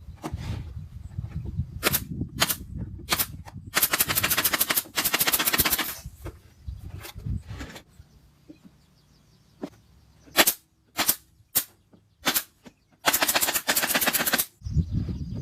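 Homemade 10-inch subwoofer playing deep, pulsing bass, broken by sharp single cracks and two long bursts of rapid crackling clicks that fill the whole range.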